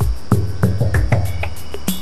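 Background music with a steady drum beat and a sustained bass line.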